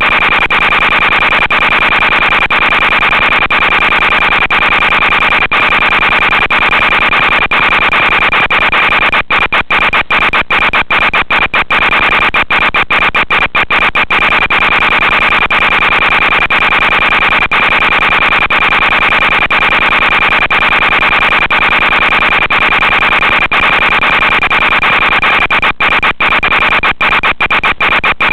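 Steady radio static hiss with a constant high-pitched whine from an analog FPV video link's audio channel, dropping out briefly many times.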